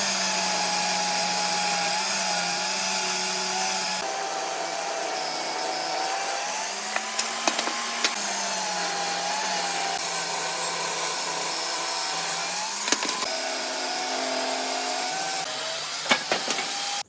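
An electric power tool running and working wood: a steady motor whine with a hiss over it, the pitch sagging slightly now and then as it takes load, with a few sharp ticks.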